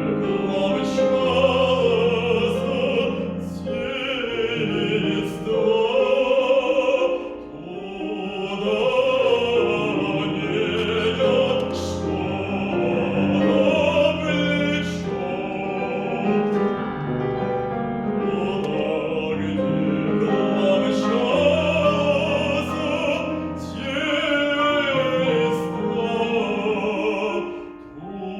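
A male classical singer with wide vibrato singing a Russian folk song arrangement in full operatic voice, accompanied by piano. The voice pauses briefly between phrases, once about a third of the way in and again near the end.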